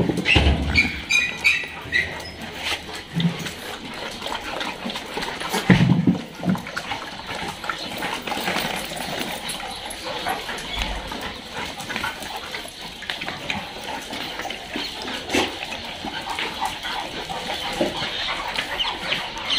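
Several dogs play-wrestling on a tiled floor: dog vocal sounds and scuffling throughout. There are a few short, high calls about a second in and a louder low sound just before six seconds.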